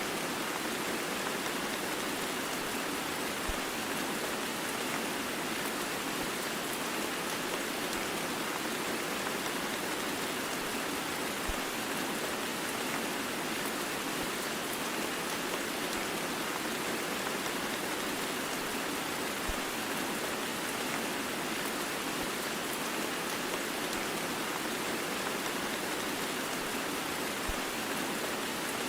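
Heavy rain blended with white noise: a steady, even hiss with no let-up. A faint low tick recurs about every eight seconds.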